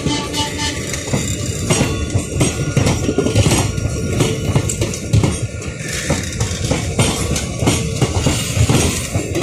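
Indian Railways passenger coaches of an express train passing at speed: a dense, loud rush of wheel-on-rail noise with rapid, continuous clattering and rattling.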